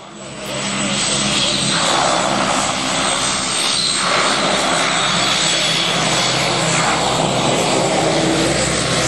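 OV-10 Bronco's twin Garrett T76 turboprop engines running as the aircraft taxis, a loud steady propeller and engine noise with a thin high whine on top. It comes up over the first second and then holds.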